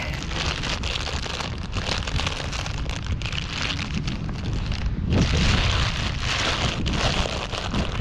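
Thin plastic bag crinkling and rustling as hands dig through live crawfish inside it to grab one, loudest about five seconds in.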